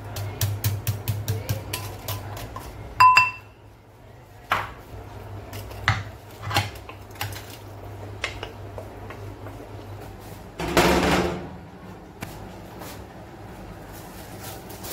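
Kitchen utensil clatter: a wooden spoon tapping rapidly against a ceramic bowl, then a loud ringing clink, a few scattered knocks and a brief scraping noise about eleven seconds in.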